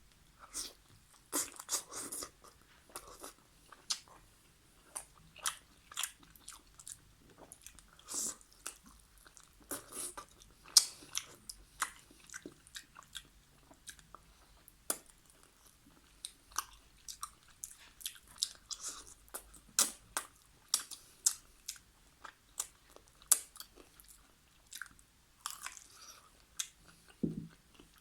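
Close-up chewing and mouth sounds of someone eating chicken karahi with naan: irregular wet smacks and crisp clicks of biting and chewing, recorded close to the microphone for ASMR.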